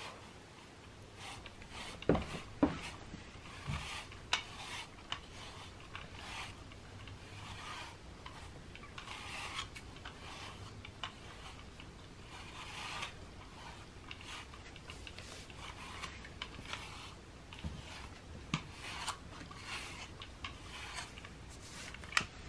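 Stiff bristles rasping through a cat's fur in repeated strokes, as the cat rubs himself along a self-groomer's bristle arch and is brushed by hand. A few sharp knocks come about two to four seconds in and again near the end.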